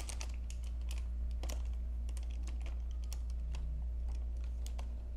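A scatter of light, irregular clicks and taps over a steady low hum.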